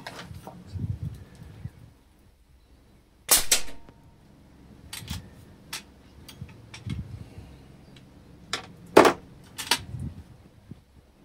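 Air rifle shots at a steel pellet trap: two sharp cracks about three seconds in and again about nine seconds in, each with a quick second smack close behind, typical of the pellet striking the steel target and trap. Quieter metallic clicks of the rifle's action being worked to reload come between the shots.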